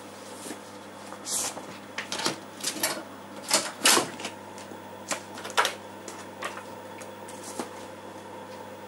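Irregular clicks and clatter of an 8-inch floppy disk being swapped in the TRS-80 Model II's drive, loudest about halfway through, followed near the end by a keypress on the computer's keyboard. A steady machine hum runs underneath.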